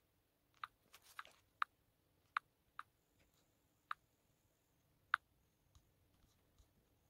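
Faint sharp clicks of fingertips tapping a smartphone touchscreen, about seven at uneven spacing, the last about five seconds in.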